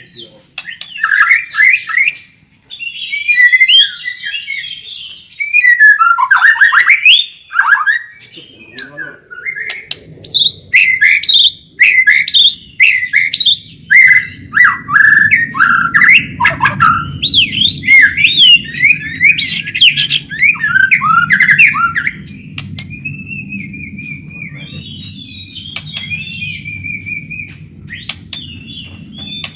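White-rumped shama (murai batu) singing, a loud, varied stream of rapid whistled phrases and sweeping notes, turning quieter and more even near the end. A low steady hum runs underneath from about a third of the way in.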